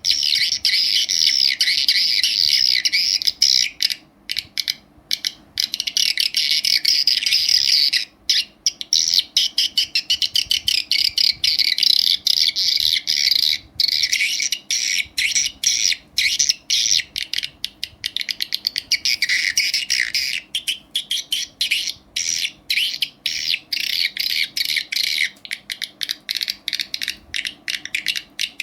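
Recorded swiftlet calls played back through an amplifier and speaker, the kind of lure sound used in swiftlet farming: a dense stream of rapid high chirps and twitters. It breaks off briefly about four and eight seconds in, and turns choppier, in quick pulses, through the second half.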